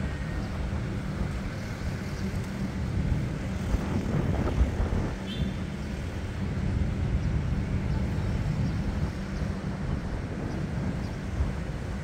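Strong wind and ocean surf breaking on a sandy beach: a steady, deep rush that swells and eases.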